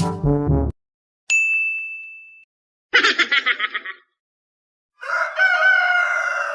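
A music tail ends, then a single bright ding rings and fades. About a second of rapid chicken clucking follows, and near the end a rooster crows.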